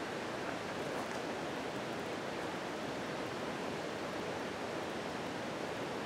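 Steady, even rushing outdoor ambience with no distinct events.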